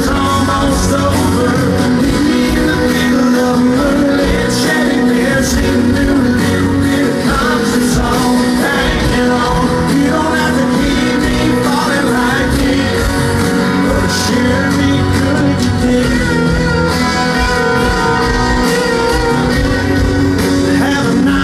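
Live country band playing a passage without lead vocals, electric guitars to the fore, amplified over a concert sound system and heard from the audience.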